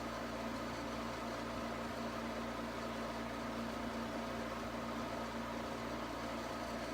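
Steady background hum and hiss with a constant low tone and no distinct events, like a fan or air conditioner running.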